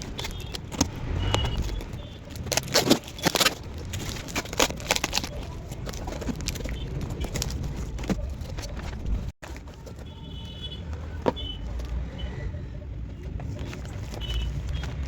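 Handling noises: irregular clicks and rustles of small items, heard over a low steady rumble.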